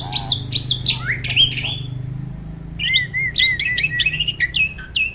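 Jalak starling singing: fast, loud whistled phrases of sharply rising and falling notes. A short pause comes about two seconds in, then a quick run of repeated chirps.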